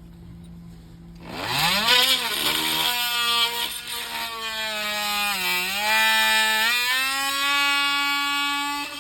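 Kobalt oscillating multi-tool starting up about a second in, its motor whine rising quickly to speed and then running steady as it cuts wood, the pitch sagging briefly midway as the blade bites. It stops just at the end.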